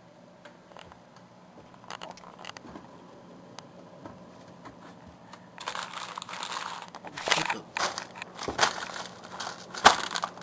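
Faint clicks over a low steady hum, then from about halfway in, plastic freezer packaging crinkling and crackling with sharp knocks as items are handled. The freezer contents are thawed and soft when they should be frozen solid: the refrigerator has stopped cooling.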